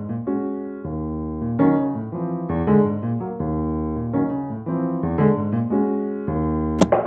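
Background piano music, a slow run of sustained notes, with a sharp knock or two near the end.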